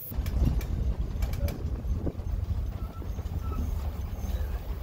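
Bus heard from inside its cabin: a steady low engine and road rumble with scattered clicks and rattles.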